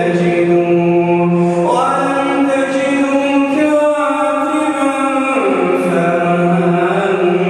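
A man reciting the Quran in melodic tajweed into a microphone, drawing out long held notes that step up in pitch and later fall back down.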